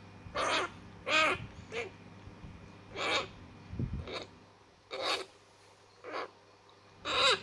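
A month-old African grey parrot chick giving short, repeated food-begging calls, about one a second, while it is fed formula from a syringe.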